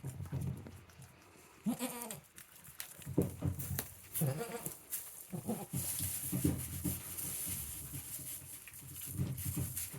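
Goats bleating: a wavering call about two seconds in, then several shorter calls through the rest, over a rustling hiss.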